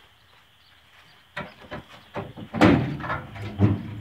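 Several light knocks, then a loud clanking thud a little under three seconds in and a second thud about a second later: metal truck body parts being handled at a pickup's bed.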